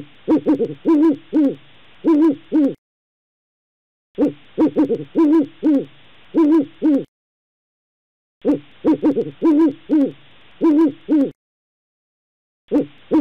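An owl hooting in phrases of about eight quick hoots. The same phrase comes three times with pauses between, and a fourth begins near the end.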